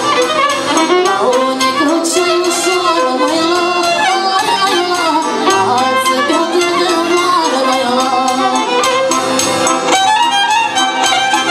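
Live traditional folk-style music: a violin plays a bending melody over an electronic Korg keyboard accompaniment.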